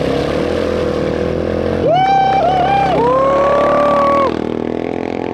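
Quad bike engine running as it churns through a muddy water crossing. Over it, from about two seconds in to past four seconds, comes a loud, high held tone that wavers and then steadies, a call or horn from the bank.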